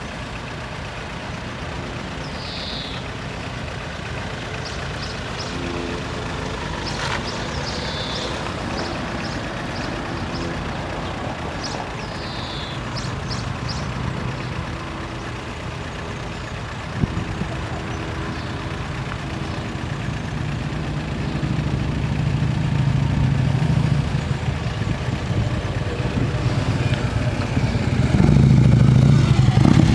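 A motorcycle engine drawing closer, its low rumble building over the last ten seconds to its loudest at the very end. A few short falling bird chirps sound in the first half.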